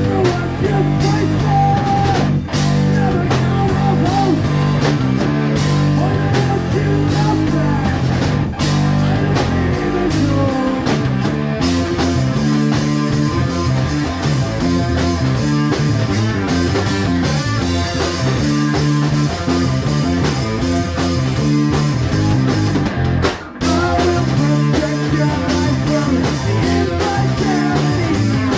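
Live rock band playing loud, steady instrumental music: electric guitar, electric bass and drum kit together, with a short break in the sound near the end.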